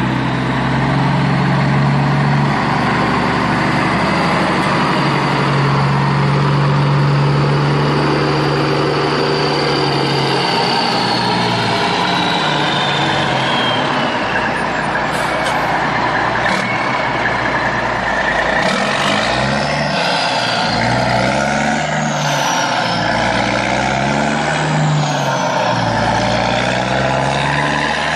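Diesel engine of a fully loaded ten-wheel Tata truck, heard from inside the cab as it labours along a rough dirt track. The engine note is steady at first, then rises and falls several times in the second half.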